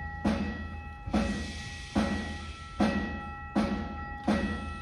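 Youth string orchestra with timpani playing live: sharp accented strikes about every 0.8 s over held string notes, the beats slowly closing up as if speeding up.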